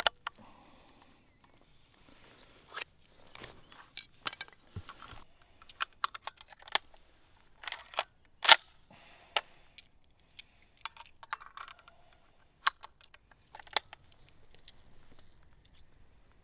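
Metallic clicks and clacks of a hunting rifle's action being handled and loaded, irregular throughout, with the loudest clack about eight and a half seconds in.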